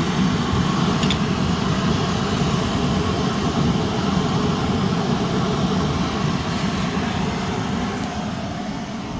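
Two Swiss army petrol vaporizing burner stoves (Benzinvergaser-Brenner) burning with a steady rushing noise, which fades gradually over the last couple of seconds as they are switched off.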